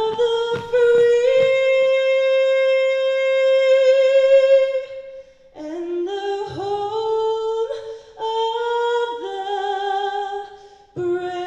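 A single unaccompanied voice singing: one long high note with vibrato held for about four seconds, then a second phrase of several sustained notes.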